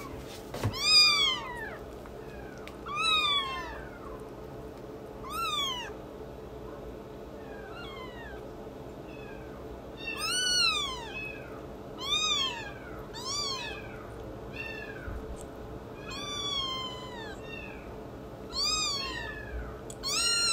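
Newborn kitten mewing: a dozen or so thin, high-pitched mews, each rising then falling in pitch, repeated every second or two.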